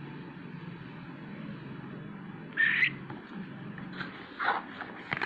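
Handling noises of a cardboard product box and a card: one short, loud squeak about two and a half seconds in, a rustle about four and a half seconds in and a click near the end, over a faint low hum.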